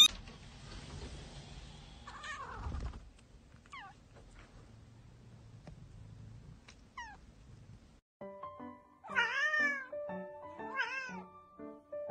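Kittens mewing: a few faint, short, high mews over a low hiss, then, about eight seconds in, background music with a steady beat and two louder cat meows.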